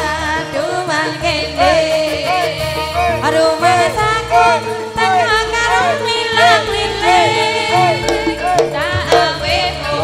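Javanese gamelan (karawitan) ensemble playing continuously: a high melody line of repeated rising-and-falling pitch swoops over low sustained gong and bass tones that change every second or so.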